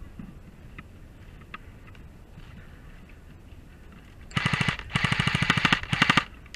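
Airsoft rifle firing three full-auto bursts of rapid clicks in quick succession, the middle burst the longest.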